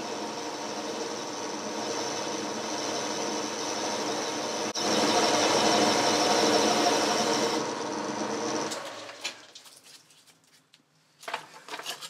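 Boxford metal lathe running, its drive giving a steady hum, with a parting tool cutting into a small metal roller and the cut growing louder about halfway through. The lathe is then switched off, runs down and falls quiet, followed by a few light clicks near the end.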